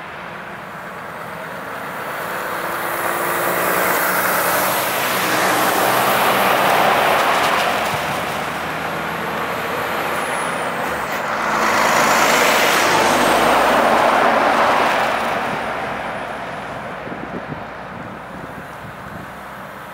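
Heavy Volvo trucks driving past one after another: engine and tyre noise swells and fades twice, the second pass-by a Volvo timber truck hauling a trailer loaded with logs.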